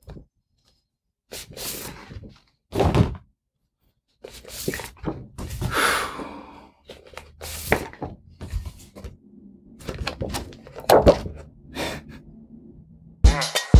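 Large handwritten paper cards being handled and swapped: a series of short rustles and dull thunks, some a second or more apart. Music with a beat comes in near the end.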